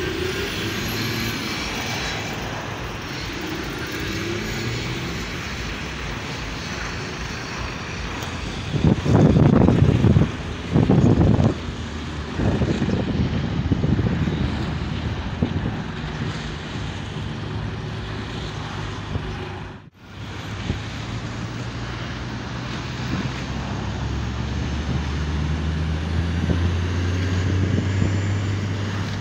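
Street traffic with heavy trucks driving past: steady diesel engine and tyre noise, with two loud rushes of noise about nine and eleven seconds in. The sound cuts out for a moment around twenty seconds, and near the end a truck's low diesel drone swells as it passes close.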